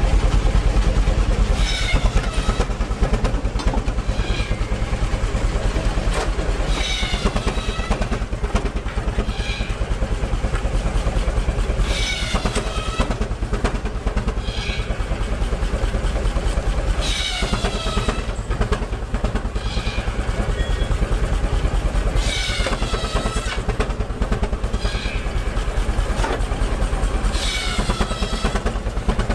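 Steam traction engine running under load, its exhaust beating fast and steady as it drives a flat belt. About every five seconds the belt-driven saw rings briefly as it cuts through wood, rising and then falling away.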